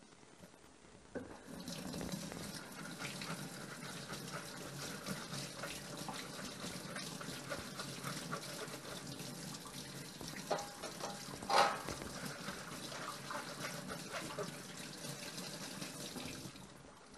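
Kitchen tap running into a sink, turned on about a second in and off near the end, with a few knocks partway through, the loudest about two-thirds of the way in.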